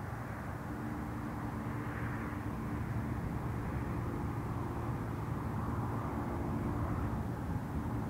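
Diesel freight locomotives approaching from a distance: a steady engine drone with a low hum, slowly growing louder.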